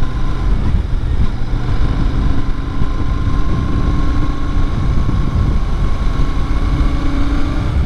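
Royal Enfield Shotgun 650's 648 cc parallel-twin engine running at a steady cruise while under way, mixed with wind noise on the microphone.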